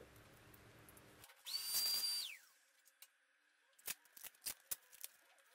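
Hand work on a wall: a short high squeal about one and a half seconds in, dropping in pitch as it stops, then a quick run of sharp light clicks as masking tape is handled and pressed onto the wall.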